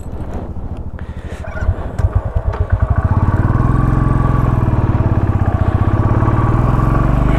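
Motorcycle engine pulling away and picking up speed, its beat building over the first three seconds and then running steady.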